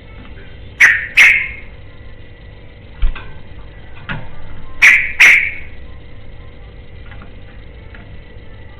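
Yellow-vented bulbul (trucukan) giving loud, sharp calls in two pairs, about four seconds apart, with a few fainter notes between them, over a steady background hum.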